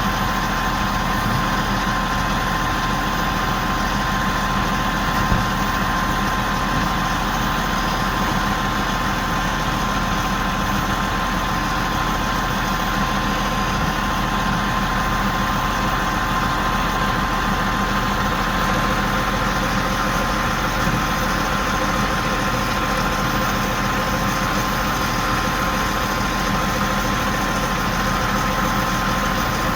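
Big mobile crane's engine idling, a steady drone with a constant hum on top. One brief knock about five seconds in.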